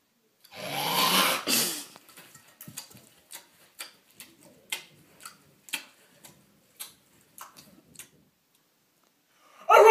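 People eating lettuce face-first off plates with no hands, like pigs: a loud rough burst about a second and a half long, then short wet chomping smacks roughly twice a second. A loud voice starts right at the end.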